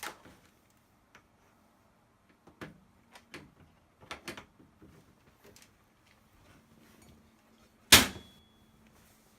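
Computer case panel being handled and fitted: scattered light clicks and taps, then one loud sharp knock about eight seconds in.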